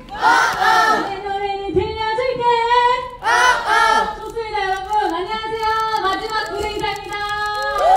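Women's voices singing held notes, with crowd cheering in two short bursts, about half a second in and again about three and a half seconds in.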